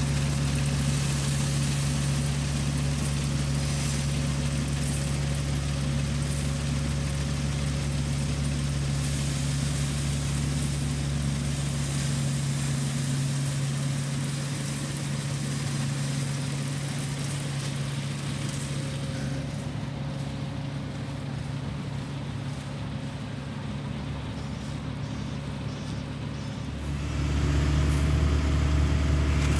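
Engine of a farm machine running steadily with a low hum. It gets quieter about halfway through and comes back up louder near the end.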